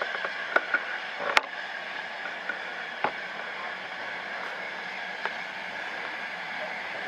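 LMS Ivatt 4MT 2-6-0 steam locomotive drifting slowly in: a steady hiss with a few sharp metallic clanks in the first second and a half, and single clicks about three and five seconds in.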